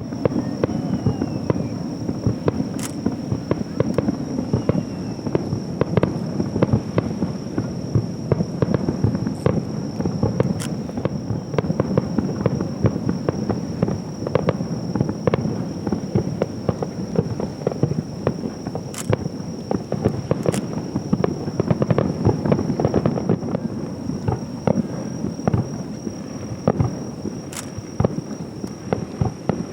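Aerial fireworks display: shells bursting in quick succession, with many overlapping booms and crackles and no pause. A steady high-pitched tone runs underneath.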